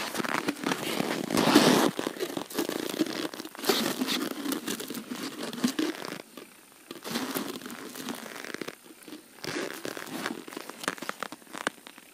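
Crunching snow and rustling of a heavy padded winter suit as a person moves about and kneels down in the snow, in irregular crackly bursts that thin out about halfway through.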